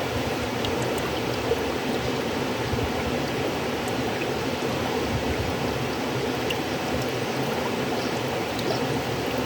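River water flowing steadily, a continuous rush with faint small splashes and trickles.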